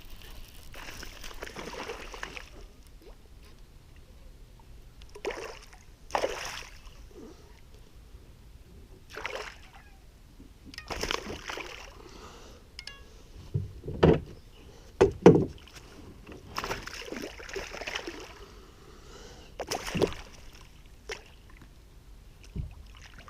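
Water splashing and sloshing at the side of a kayak, with scattered knocks on the hull, as a hooked smallmouth bass is brought in. Two louder thumps come about a second apart a little past the middle.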